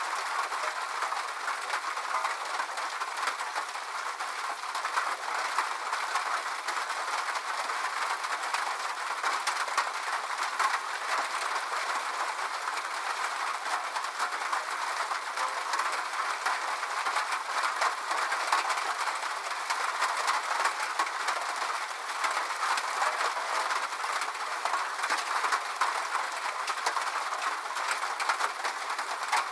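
Rain falling on a metal roof: a steady, dense patter of countless small drop impacts, even in strength throughout, with no low rumble.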